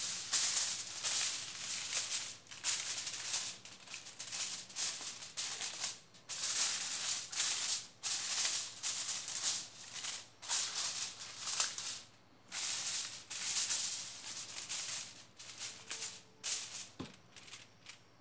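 Aluminium foil crinkling and rustling in irregular bursts as gloved hands smooth it over a cake pan and crimp it down around the rim. There are short pauses between the bursts, and the crinkling thins out near the end.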